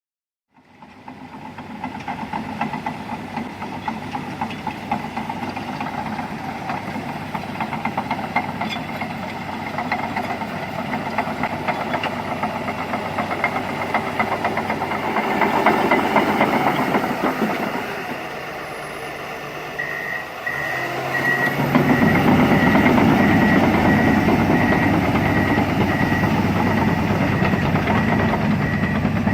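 Komatsu D61PXi crawler bulldozer's diesel engine running as the machine works. About two-thirds of the way through, a beeping reverse alarm starts up, about one and a half beeps a second. Soon after, the engine grows louder under heavier load.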